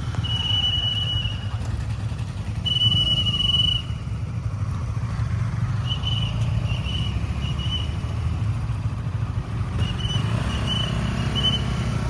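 Traffic police whistle: two long blasts, then two runs of short, quick blasts. A low steady rumble runs underneath.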